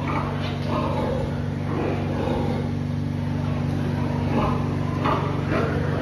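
Pigs grunting and squealing in short calls now and then, over a steady low mechanical hum.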